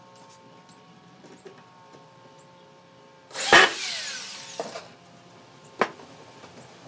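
Electric drill driving a screw into wood: the motor runs loud for about a second and a half, its whine falling as it slows at the end. A single sharp knock follows about a second later.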